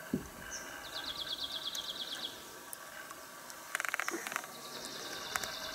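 Outdoor ambience with a high, rapid trill of a small wild creature about a second in and again near the end, and a short burst of rapid clicks in the middle.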